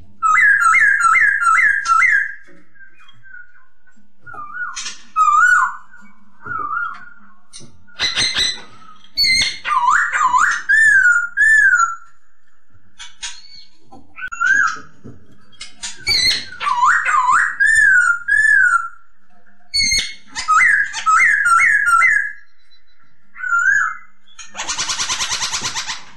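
Black-throated laughingthrush (poksay Hongkong) singing loud, clear whistled phrases of rapidly repeated notes and rising-and-falling slurs, in bursts with short pauses. Near the end it gives a harsh buzzing rattle about a second long.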